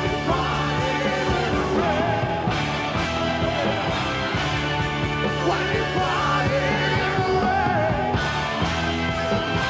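Hard rock band playing live: electric guitars, bass and drums.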